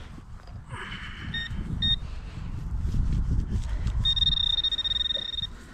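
Handheld metal-detecting pinpointer sounding its electronic alert tone as its tip nears metal in the soil. There are two short beeps about a second and a half in, then a steady tone lasting about a second and a half near the end, over a low rumble.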